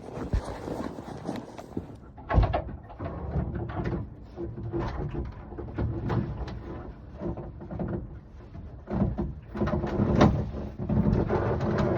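A door bangs shut about two seconds in, cutting off the wind hiss, followed by irregular knocks, clunks and rustles of gear being moved and set up inside a small wooden shack.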